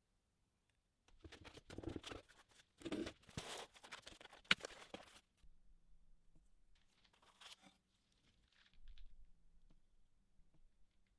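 Packaging rustling and crinkling as small parts are handled and lifted out of a foam-lined cardboard box, with one sharp click about four and a half seconds in and a softer rustle later on.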